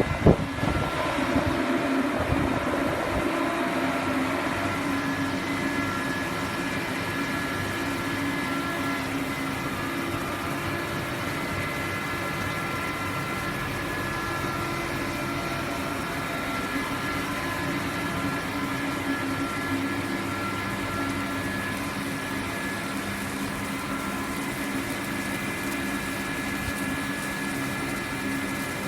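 Laser CNC cutting machine running on steel plate: a steady machine hum and hiss with several constant whining tones, and one sharp knock just after the start.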